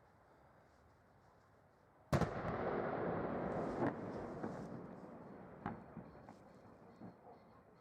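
Explosive charge detonating at a cellular tower: one sudden blast about two seconds in, then a rumble that fades over several seconds, with a few sharp cracks as it dies away.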